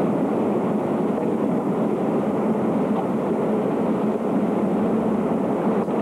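Shallow floodwater flowing down a street: a steady, even rushing noise.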